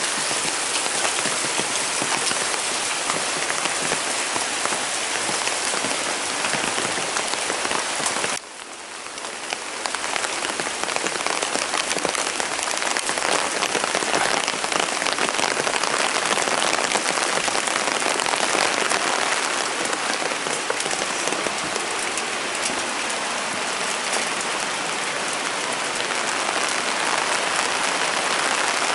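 Heavy rain falling steadily, a dense hiss of drops on wet ground and leaves. About eight seconds in it drops away suddenly and builds back over a couple of seconds.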